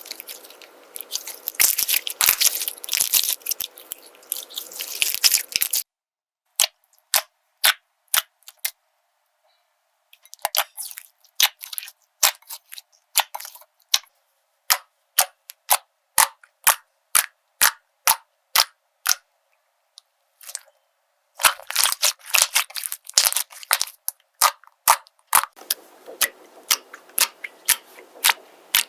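Slime being pressed and squeezed with hands: dense crackling, then a long run of sharp separate pops as trapped air bursts, about two a second, with another burst of crackling about three-quarters of the way in.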